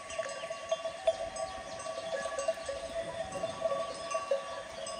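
Many livestock bells clinking and ringing at once, irregular jangling, as from a grazing flock wearing bells.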